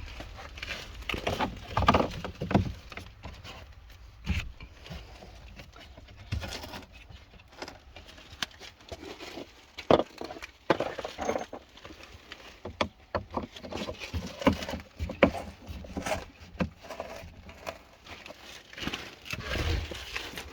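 Irregular knocks and taps of plastic shed wall panels being fitted together and knocked into place, with the loudest knock about halfway through.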